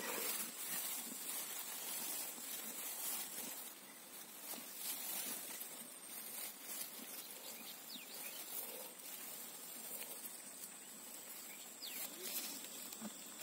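Grass rustling and crackling as a hand parts the stems and picks at damp soil, over a steady outdoor background hiss.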